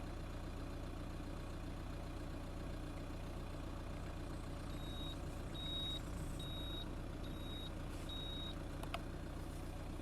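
A 12 V car kettle beeps five short high beeps, about a second apart, signalling that the water has come to the boil. Under the beeps run the steady sound of boiling water and the low hum of the idling car engine. A single click comes near the end.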